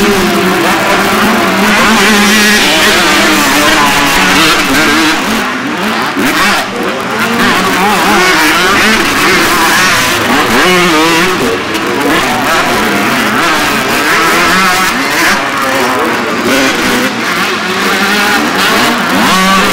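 Motocross dirt bike engines racing around a track: several engines at once, revving hard and backing off, their pitches rising and falling over one another without a break.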